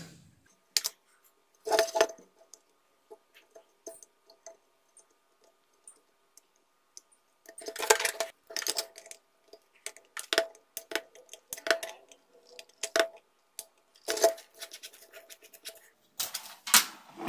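Irregular clicks, taps and clinks of a printed circuit board, solder wire and tools being handled and set down on a workbench. The taps bunch up about eight seconds in, carry on sparsely, and cluster again near the end.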